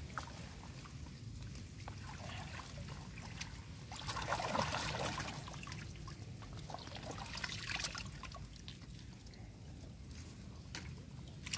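Water trickling and splashing as mesh tube eel traps are lifted out of a muddy creek and a man wades through waist-deep water, with a louder splash about four seconds in.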